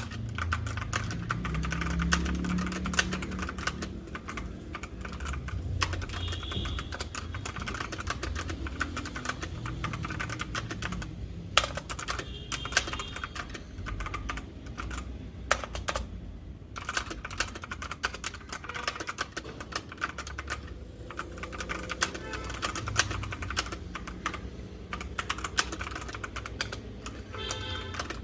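Continuous fast typing on a Kreo Hive mechanical keyboard with brown tactile switches: a dense run of key clicks, with brief pauses about eleven and sixteen seconds in.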